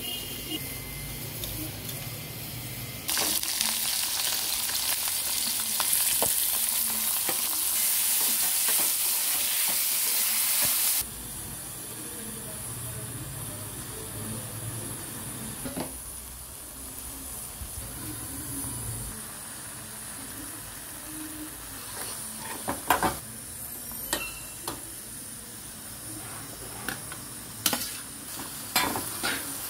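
Food sizzling in hot oil in a metal kadai. The sizzle is loud and steady for several seconds, then cuts off abruptly and carries on quieter as a steel spoon stirs and scrapes. Sharp clatters near the end come as mushroom pieces are tipped into the pan from a steel plate.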